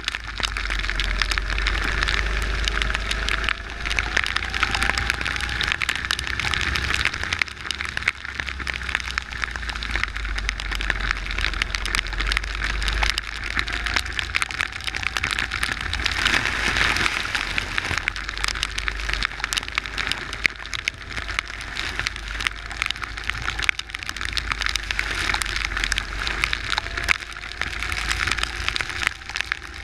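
Kart engine heard from an onboard camera on a wet track, its faint note rising several times as it accelerates, under a constant hiss and crackle of water spray and rain and a low wind rumble on the microphone.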